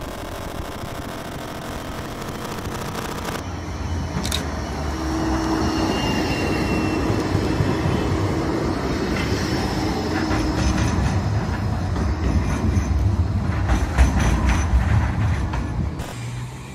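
Modern Bombardier Flexity 2 tram running past on street track, its wheels rumbling on the rails and growing loudest as it passes, about fourteen seconds in. A steady electric motor hum runs through the middle, with a faint high squeal from the wheels for a moment.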